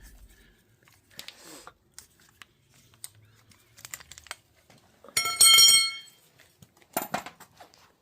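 Hand tools and pipe being handled while a pipe is cut to length: scattered light clicks and knocks, a short, loud, high-pitched metallic squeal about five seconds in, and a sharp knock near the end.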